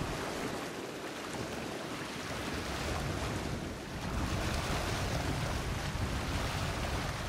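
Wind gusting across the microphone over the wash of choppy water, the low wind rumble growing stronger from about halfway.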